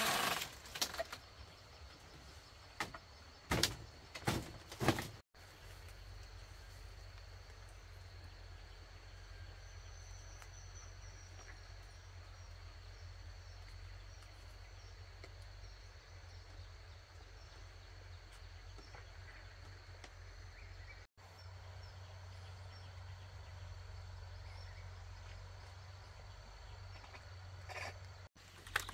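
Quiet rural room tone: a steady low hum and a faint high steady tone, with faint chirps now and then. A few knocks and rustles in the first five seconds as someone moves about on the bamboo floor.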